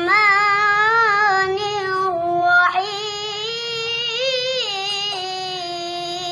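A child's voice chanting Quranic recitation in the melodic tilawah style, holding long notes with wavering ornaments; a new phrase begins partway through.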